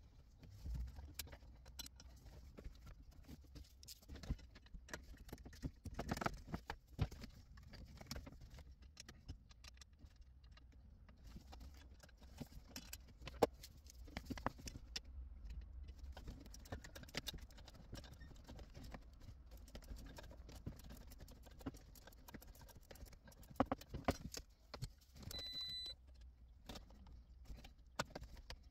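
Small scattered clicks, taps and rustles of gloved hands handling plastic wiring connectors, trim and screws inside a car's dashboard, over a faint low hum. Near the end there is one short electronic beep.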